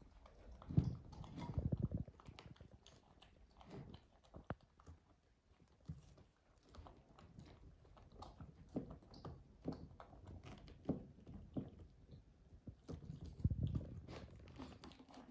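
Jackfruit being pulled apart and picked through by hand: quiet, irregular sticky tearing and handling sounds with small clicks, a few dull knocks about a second in and again near the end, and soft chewing as the pieces are eaten.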